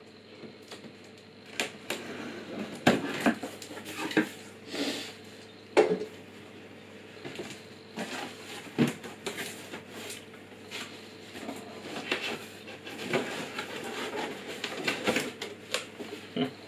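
Plastic shrink-wrap being pulled off a cardboard box, crinkling and crackling in irregular bursts, then the cardboard flaps being opened and a cardboard insert handled, with scattered sharp knocks.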